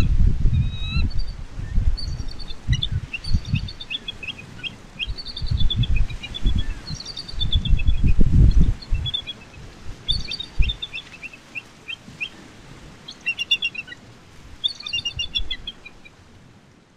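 Bald eagle pair calling: several bursts of rapid, high, thin chittering notes, with a low rumble underneath that fades out about eleven seconds in.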